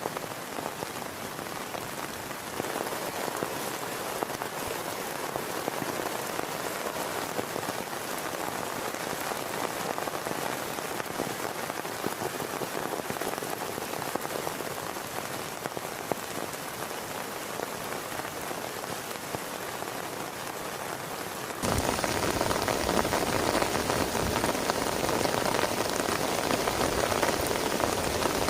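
Heavy rain falling steadily, a dense even patter of drops. About twenty seconds in it suddenly becomes louder and deeper, as if heard from a different spot.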